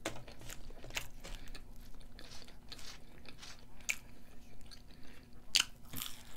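Mouth sounds of a person chewing and biting french fries: a run of short crunches and clicks, the loudest about five and a half seconds in.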